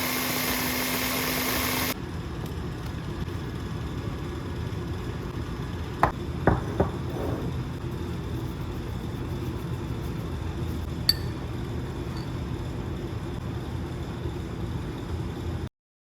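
A steady humming, noisy sound with a low tone cuts off about two seconds in. A quieter background hiss follows, with three quick clinks of dishware about six seconds in and a single clink near eleven seconds. Everything stops abruptly shortly before the end.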